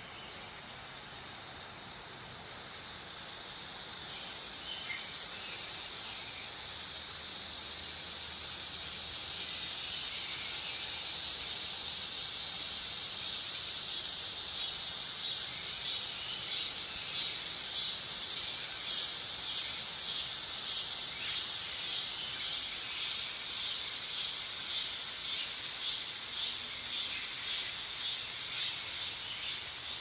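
Dog-day cicada (Neotibicen canicularis) singing: a continuous high-pitched buzz that swells over the first several seconds, turns into an even pulsing in the second half, and eases off near the end.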